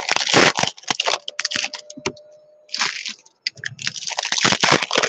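Foil wrapper of a baseball card pack crinkling and tearing as it is pulled open by hand, in quick crackly bursts with a short lull partway through.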